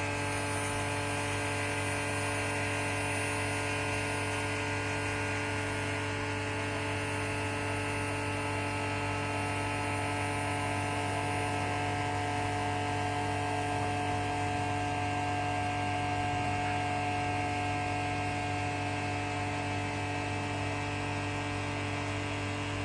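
Vacuum pump running with a steady hum, pulling a vacuum on a sealed mixer vessel that is close to its designed vacuum degree. A faint higher steady tone joins the hum for a while in the middle.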